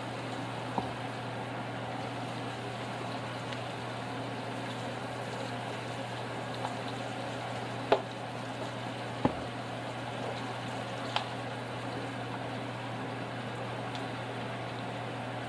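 Steady bubbling and hiss of food simmering on the stove, over a constant low hum, with a few light clicks, the sharpest about eight seconds in.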